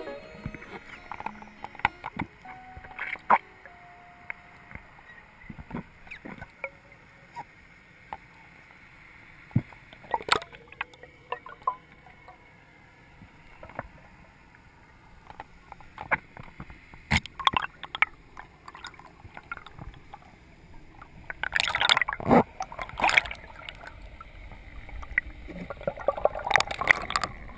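Underwater sound picked up by a camera in its housing during a freedive: scattered clicks and knocks over a low rush of water. Bubbling and water rushing grow denser twice in the last third.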